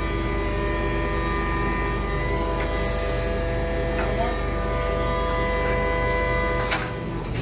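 Propane forklift running steadily with a whine, as it lifts a load hung by chains. A short hiss comes about three seconds in, with a few metal clicks.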